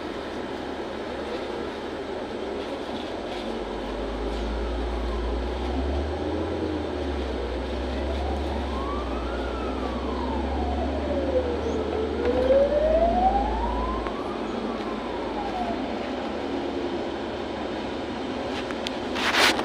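Interior of a LiAZ 6213.65 articulated city bus pulling away and driving, with a steady engine and road rumble that grows heavier in the middle. Over it, a wailing tone rises and falls slowly several times, and there is a sharp knock near the end.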